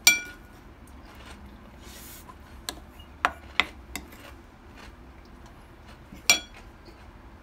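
Spoon clinking and scraping against a ceramic plate while gathering the last grains of rice: a sharp ringing clink at the start, a quick run of four clinks about three seconds in, and another clink near the end.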